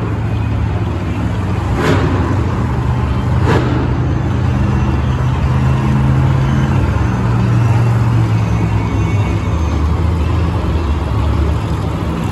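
Monster truck engines running and revving: a deep, loud, steady rumble whose pitch rises and falls with the throttle, with two short sharp knocks about two and three and a half seconds in.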